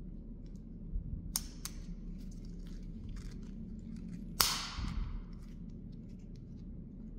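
Plastic clicks from a wiper blade's arm adapter being worked by hand. A little past halfway it gives one loud, sharp snap with a short ring as it clips into place on the blade, followed by a few light ticks.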